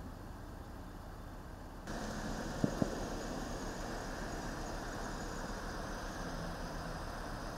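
Police SUV idling with a steady engine hum that comes in suddenly about two seconds in, with two sharp clicks shortly after.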